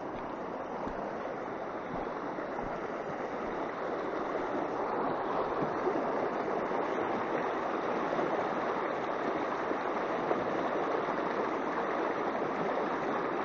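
Clear mountain river rushing over stones and rapids, a steady rush of water that grows louder about four seconds in.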